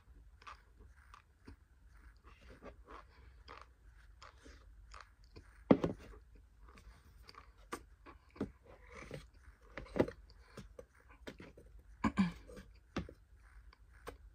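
Mouth chewing and crunching a spoonful of dry cornstarch: a run of short, crisp clicks and crunches, with a few sharper, louder ones about six, ten and twelve seconds in.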